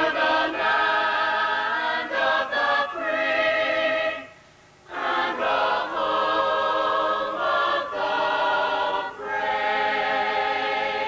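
Choir singing held chords unaccompanied. The chords come in phrases, with a short break about four seconds in.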